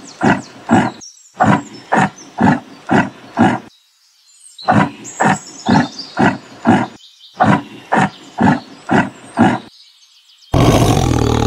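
Yak grunting: a run of short grunts about two a second, a break of about a second, then more grunts, with birds chirping faintly behind. A louder, longer rough call cuts in near the end.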